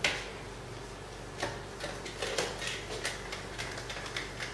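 Whiteboard eraser rubbing over a whiteboard in short, quick strokes, with a sharp knock as it meets the board at the start and another about a second and a half in.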